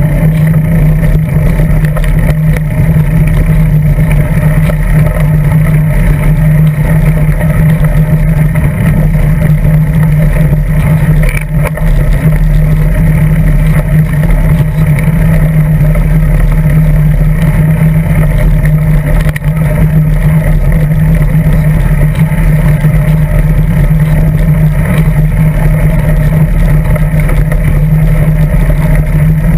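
Steady rolling and wind noise of a bicycle riding over asphalt and gravel, picked up through the frame by a GoPro Hero 2 mounted on the seat post, with a loud constant low drone.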